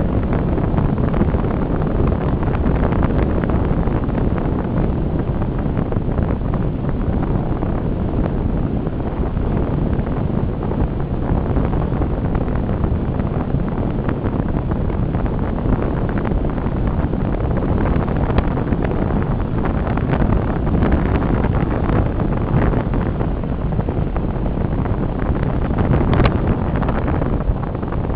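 Steady wind noise on the microphone of a camera fixed to the front of a moving car, with the car's running noise beneath it and a few brief knocks.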